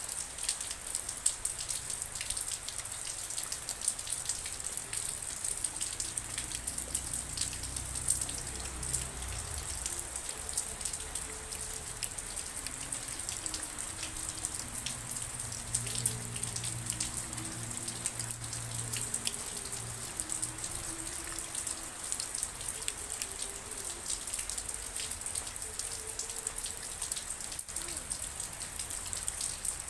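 Steady rain falling, with a dense patter of individual drops striking a surface close by.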